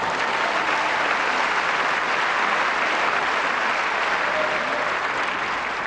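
Tennis stadium crowd applauding steadily after a point ends.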